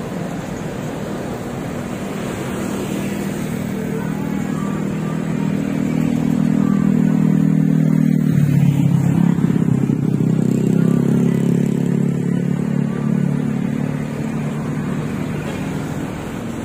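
Busy road traffic at a junction: a continuous hum of truck and motorcycle engines moving off and passing, swelling louder about halfway through as vehicles go by close, then easing off.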